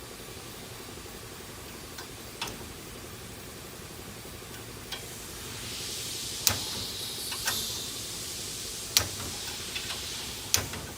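Scattered sharp metallic clicks and clinks, about one every second or so, as a torque wrench and socket are worked on a connecting rod's bolts, over a steady low hum.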